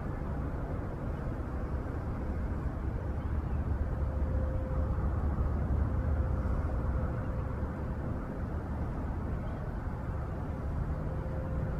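Distant thunder rolling after a lightning flash: a low rumble that swells a few seconds in and then eases off, over a faint steady hum.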